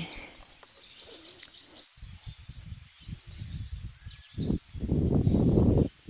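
Faint bird chirps over quiet outdoor ambience, then gusts of wind buffeting the microphone with a low rumble, coming and going from about two seconds in and becoming louder and continuous near the end.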